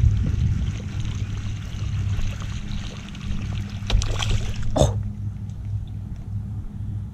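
Steady wind rumble on the microphone, broken about four seconds in by a sudden splash as a fish strikes at a topwater frog lure on the pond surface.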